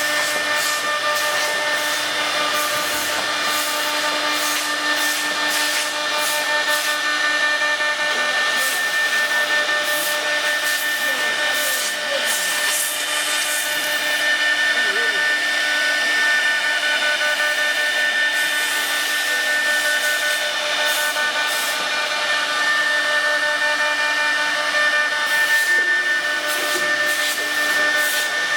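HT1350 3-axis woodworking CNC router's spindle running with a steady high whine, while a rough, uneven hiss of the bit cutting wood comes and goes over it.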